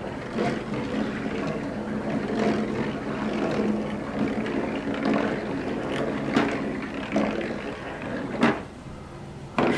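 Marbles rolling along a balsa-wood marble roller coaster's poster-board track: a steady rolling sound with a few sharp clicks.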